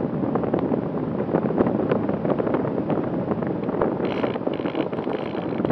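Air rushing over the onboard camera's microphone on an Easy Star 2 model plane in flight: a steady low rushing noise with constant crackling buffets.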